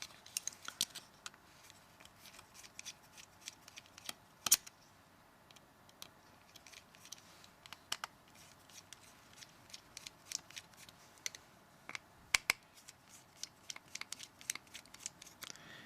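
Small irregular clicks and taps of a T5 Torx screwdriver working the screws loose in a Nokia C3-01's plastic casing, with the phone being handled. Two louder sharp clicks stand out, about four and a half seconds in and again near twelve and a half seconds.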